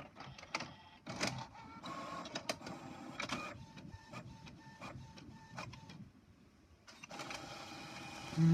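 HP OfficeJet 5740 inkjet printer printing a page: the print carriage shuttles and the paper feed clicks, with a brief lull about two-thirds of the way through before the mechanism starts again.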